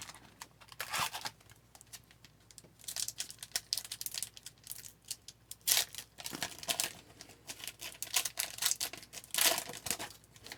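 Wrapper of an Upper Deck hockey card pack crinkling and tearing as it is opened, in several short irregular bursts.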